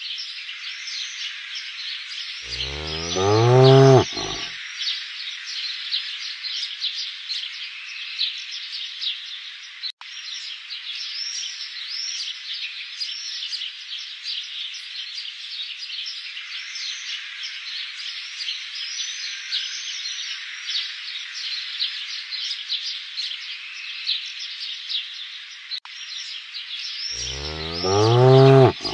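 A cow moos twice, about three seconds in and again near the end, each time a long low call and the loudest sound, over a steady background of many birds chirping.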